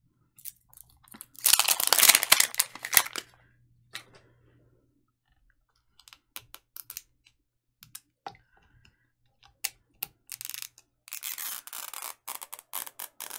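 Foil wrapper crinkling and tearing as it is peeled by hand off a Mini Brands capsule ball. There are two loud spells of crinkling, one about a second and a half in and one near the end, with scattered small clicks and crinkles between.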